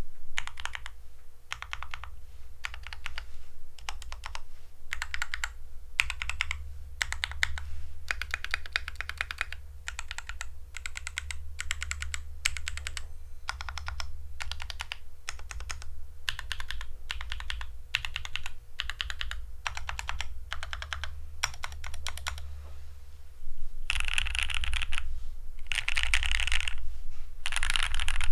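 Typing on a Vortex M0110A mechanical keyboard with G Pro Silver 2.0 linear switches and Baby Kangaroo tactile switches on the numpad. The keystrokes come in continuous runs with short pauses, over a steady low hum. From about 23 seconds in, they come in louder, denser bursts.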